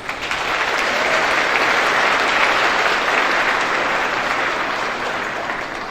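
Audience applauding. The clapping swells quickly at the start and dies away near the end.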